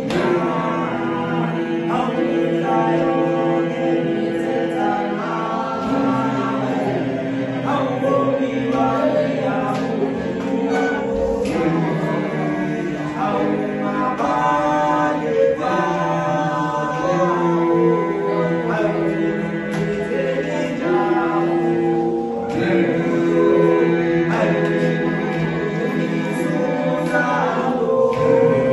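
A group of voices singing a song together in choir-style harmony, holding long notes.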